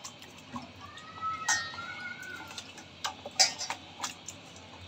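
Hand mixing raw chicken pieces with yogurt and spices in a metal bowl: soft wet handling noise broken by several sharp clinks against the bowl, the loudest about a second and a half in and around three and a half seconds in. A faint wavering call sounds in the background early on.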